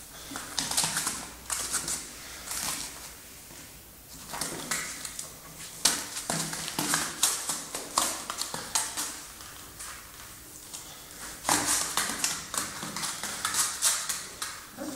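A Mastiff's claws clicking and scraping on a hard floor as it moves about, in uneven clusters of taps.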